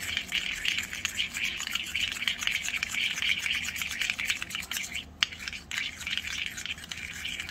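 Tiny spoon stirring and scraping thick sour cream mixture against the sides of a miniature metal bowl, a quick run of light scrapes with a brief pause about five seconds in.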